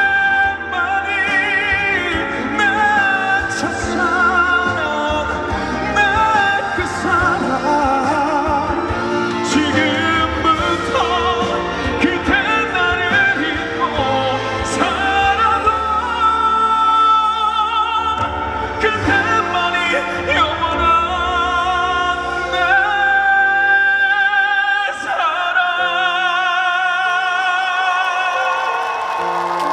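Live pop ballad played through a stage sound system: a melody with wide vibrato over full band backing. The bass drops out about four seconds before the end, leaving the melody and lighter accompaniment.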